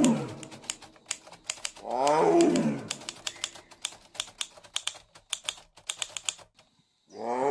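Rapid, uneven typewriter key clicks that stop a little over six seconds in. A big cat roars about two seconds in, and another roar begins near the end.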